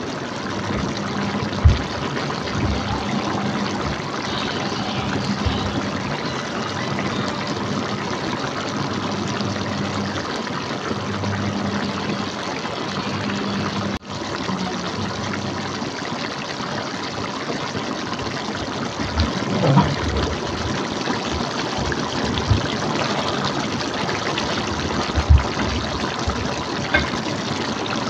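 Soy-sauce duck braise boiling hard in a pot, a steady bubbling with a few sharper pops. A low hum runs under it for about the first half.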